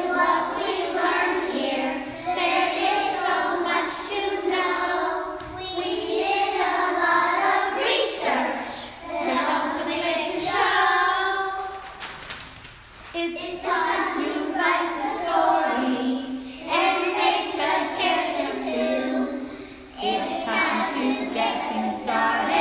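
Young children singing a song together, with brief pauses between phrases.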